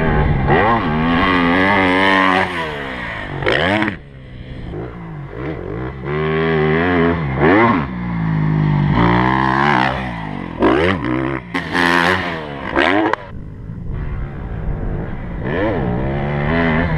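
2012 Honda CRF250R motocross bike's four-stroke single-cylinder engine revving hard and backing off again and again, its pitch climbing and dropping as the throttle is opened and closed around the track.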